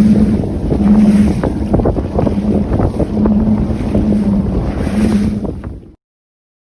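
Wind buffeting the microphone out on the water from a fishing boat, with a low hum that swells about once a second. It fades and cuts to silence near the end.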